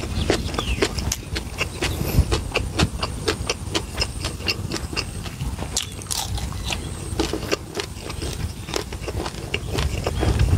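Close-miked eating: a person biting and chewing fried pork belly and spicy papaya salad, with many quick crunches and mouth clicks, several a second.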